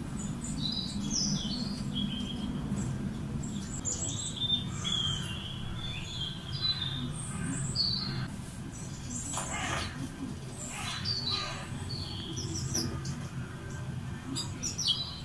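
Woodland birdsong from a nature documentary played through a television's speakers: many short chirps and trills from small songbirds, over a steady low hum.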